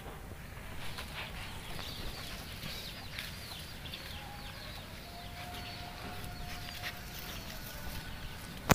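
Chickens calling: many rapid, high, downward-sliding peeping chirps, thinning out after the first few seconds, with a single sharp click just before the end.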